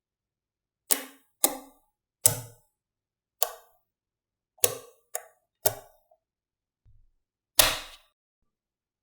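A series of sharp clicks from small hard pieces knocking together, about eight at irregular intervals, each short with a brief ring. The one near the end is the loudest.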